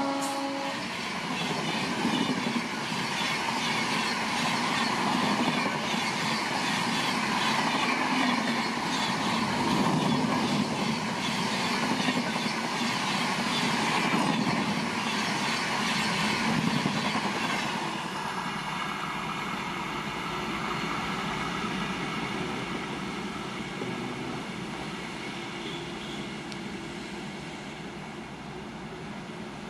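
Express train of Indian Railways passing at speed: the end of its horn drops in pitch in the first second, then the coaches rush and clatter by, with the noise falling away after about 18 seconds as the train recedes.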